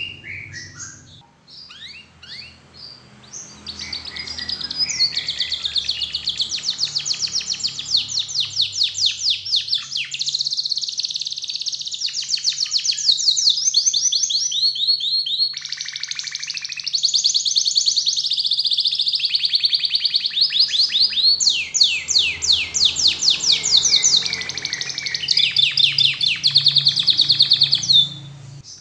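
Domestic canary singing: a few scattered chirps, then from about three seconds in a long song of rapid trills, phrase following phrase with only brief breaks, that stops just before the end.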